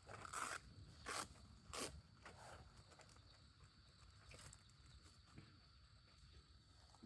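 Three short rustles in the first two seconds, then a few fainter ones, over a faint steady high-pitched background.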